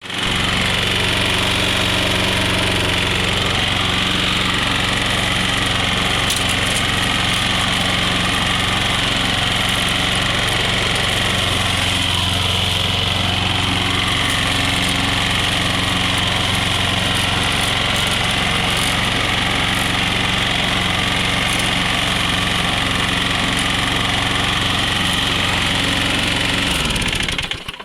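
Push mower's small engine running steadily, then shutting off and winding down near the end. Its knock sounds to the owner like a little rod knock.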